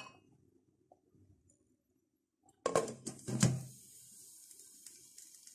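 Tempered-glass lid set onto a cooking pot of rice and hot water, clanking twice about half a second apart, followed by a faint steady hiss.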